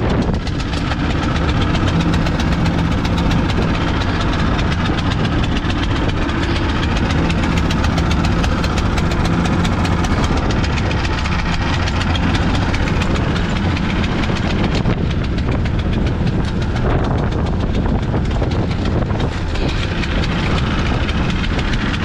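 Small gasoline dewatering pump engine and the boat's outboard motor running steadily, with water rushing along the hull of the moving boat.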